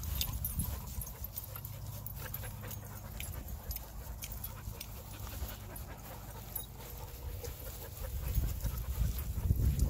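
Dogs panting close by during play, over a low rumble that grows louder near the end.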